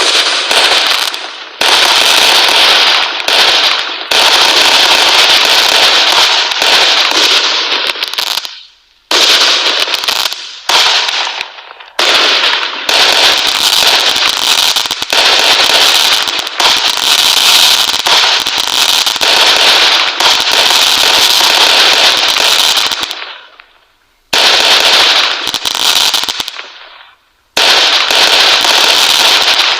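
Fireworks going off in dense, rapid crackling runs that last several seconds each, broken by abrupt short pauses.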